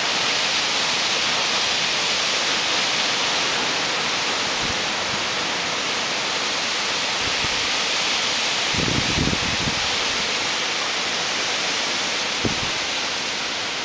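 Heavy hurricane rain falling on a flooded yard, a steady hiss. Brief low rumbles of wind buffet the microphone about nine seconds in and again near the end.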